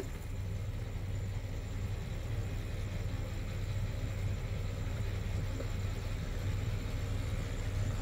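A sailing catamaran's diesel engine running steadily with a low hum.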